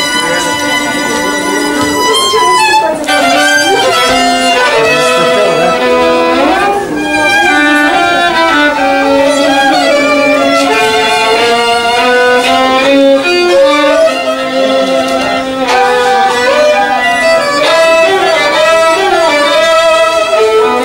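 Two violins playing a duet live, a lower part under a higher melody, with held notes that waver in pitch.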